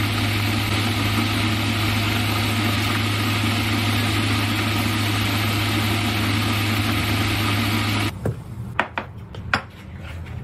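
A steady mains hum with an even rushing noise, as from a running appliance, cuts off abruptly about eight seconds in. After it come a few sharp clinks of dishes and cutlery.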